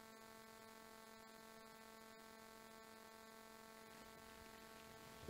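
Near silence: room tone with a faint, steady electrical hum.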